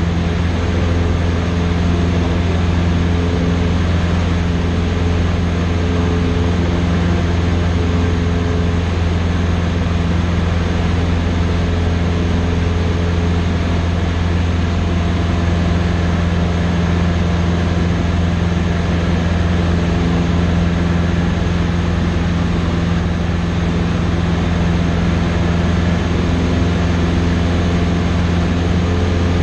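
Cessna 150's four-cylinder Continental O-200 engine and propeller in cruise, heard from inside the cockpit as a loud, steady low drone with a few constant tones over it.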